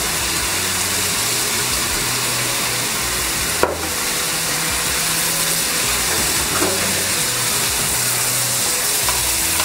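Ground-meat filling sizzling steadily in a frying pan, with one sharp knock about three and a half seconds in.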